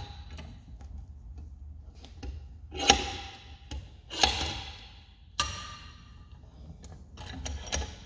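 Bench vise being worked to crimp a ring terminal onto a heavy power cable: three sharp metallic clanks about a second apart, each ringing briefly, then a few lighter clicks near the end.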